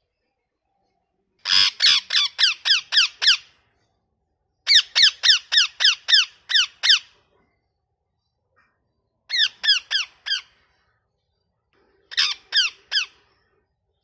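Ringneck parakeet giving loud, shrill squawking calls in four quick runs, each a string of short down-sliding screeches at about four a second; the first two runs are longest, about eight or nine calls each, the last two shorter.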